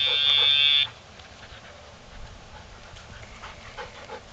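Dogtra training collar's sound box giving one steady high-pitched electronic buzz of about a second at the start: the longer buzz that marks the pager (vibration) being pressed. Afterwards faint footsteps on gravel.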